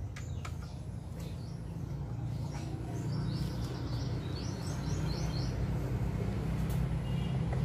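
A bird chirping in a quick series of short, high notes about three seconds in, over a steady low rumble that grows gradually louder.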